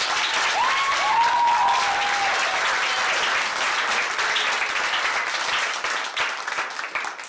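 Audience applauding, starting suddenly and fading out near the end, with a few long voice cheers in the first couple of seconds.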